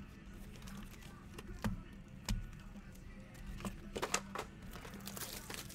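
Trading-card boxes and foil packs being handled and set down on a desk: a few scattered soft knocks and rustles, a small cluster of them about four seconds in, over a steady low hum.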